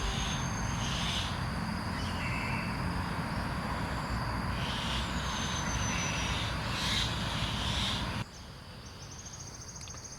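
Outdoor park ambience: a steady low rumble with a couple of short descending bird whistles. About eight seconds in it cuts suddenly to quieter ambience with an insect's steady, pulsing high trill.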